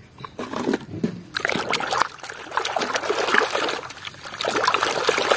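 Water splashing and sloshing as a hand scrubs a plastic toy truck in a tub of muddy, foamy water. The splashing starts about half a second in and gets louder in the second half.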